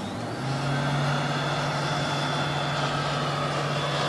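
Hot air rework station blowing: a steady fan hum with a hiss that comes up about half a second in and holds. It is heating solder paste through a reballing stencil so the chip's solder balls form.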